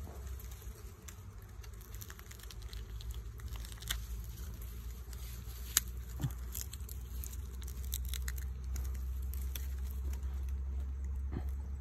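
Dry grass stalks rustling and crackling as they are handled, with scattered sharp clicks and snaps over a steady low rumble.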